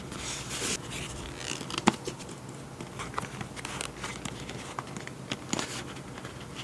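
Paper and journaling supplies being handled: soft rustling and crinkling with small scattered taps and clicks, and one sharper tap about two seconds in.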